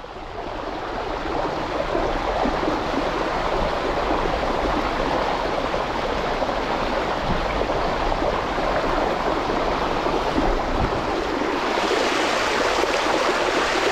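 Gravel bike's wheels and drivetrain churning through deep floodwater, a steady rushing splash of spray that turns hissier near the end as the water gets deeper.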